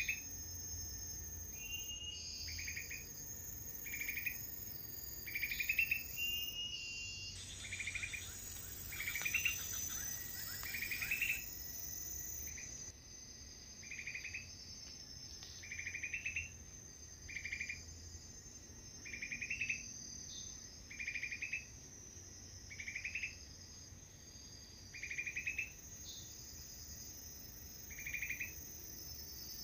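Forest insects calling. A steady high-pitched drone runs under a short, pulsing chirp that repeats about every one and a half to two seconds.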